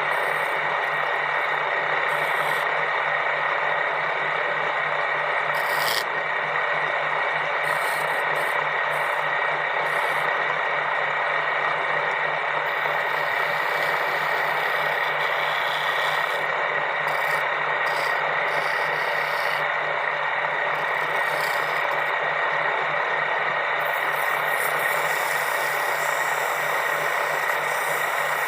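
Steady rubbing and rasping of a tool working wood, continuous over a constant hum.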